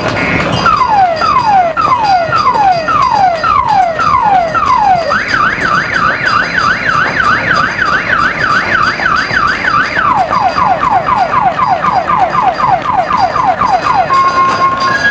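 Electronic multi-tone car alarm cycling through its siren patterns. It starts with falling sweeps about two a second, changes about five seconds in to a fast up-and-down wail, then to quicker falling sweeps, and near the end to two alternating steady tones.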